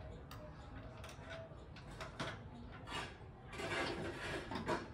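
Mechanical handling noise as the vehicle's rooftop seat is moved and fitted: a few scattered clicks and knocks, then a scraping rub from about three and a half seconds in, ending in a couple of sharper knocks.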